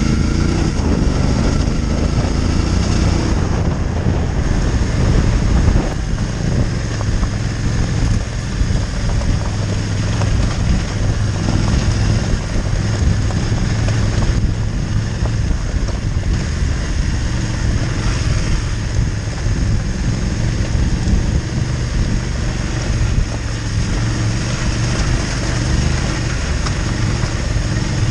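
Motorcycle engine running steadily while riding a loose gravel track, with wind rushing over the camera microphone.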